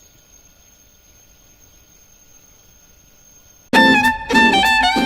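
Low room tone with a faint steady high-pitched whine, then, a little under four seconds in, music led by a violin starts suddenly and loudly.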